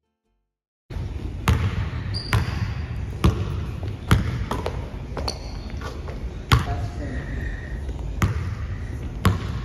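Basketball bouncing on a hardwood gym floor in a large gym, a sharp bounce about once a second, starting about a second in.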